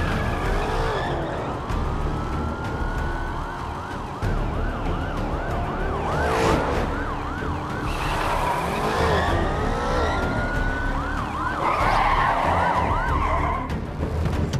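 Police car sirens: a rising wail breaks into a fast yelp of about two to three whoops a second, and the pattern comes round twice, over the low rumble of car engines.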